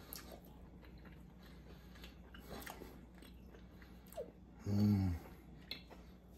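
A man quietly chewing a bite of steak, with small wet mouth clicks. About five seconds in comes a short, low "mmm" hum of enjoyment.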